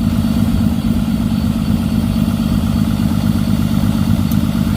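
Dodge pickup engine idling steadily just after a hard cold start in extreme cold without the block heater plugged in; the owner says it is not liking the cold.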